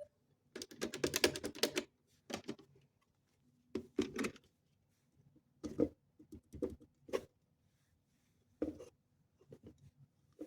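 Quick plastic clicking and rattling from a toy washing machine being handled, in short bursts of rapid clicks with pauses between them. The longest run comes about half a second in, and shorter bursts follow every second or two.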